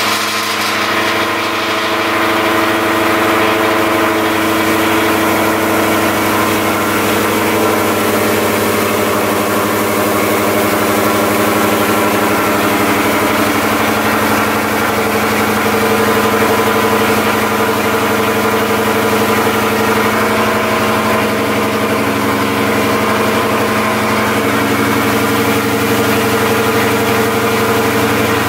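Ford 5.0 V8 of a 2017 Mustang GT, fitted with a GT350 intake manifold and headers, idling steadily just after being started.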